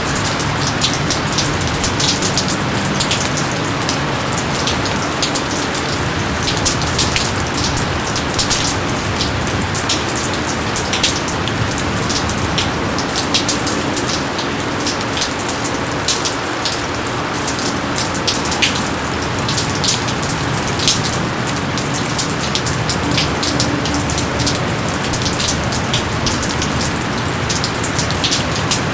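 Steady rain falling, an even hiss with many separate drops pattering and splashing sharply on top.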